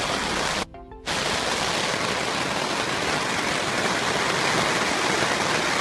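Heavy rain falling as a steady, even hiss, cut off briefly for under half a second a little under a second in.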